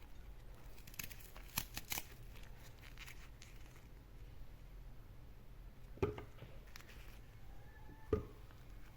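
Kitchen handling sounds: a few light clicks and crinkles about one to two seconds in, then two sharp knocks of a hard object being set down or struck, about two seconds apart.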